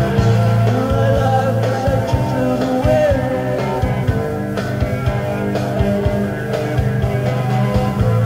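Live rock band playing, with bass, drums and electric guitar under a male lead voice singing the lyrics.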